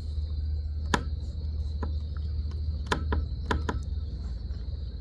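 Steady high-pitched drone of insects, with a low rumble underneath. Several sharp clicks and knocks: one about a second in, then a quick cluster of them around three to three and a half seconds.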